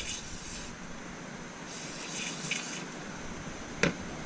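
Two short hisses, each about a second long, as the body of a vintage Craftsman ratchet is being cleaned, then a single sharp click near the end.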